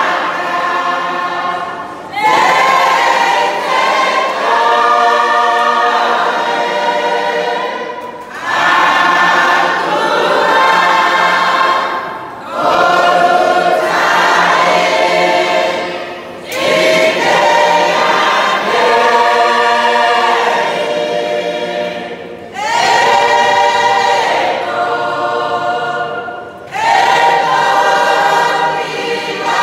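A church congregation singing a hymn together, many voices unaccompanied, in sung phrases several seconds long with brief breaks for breath between them.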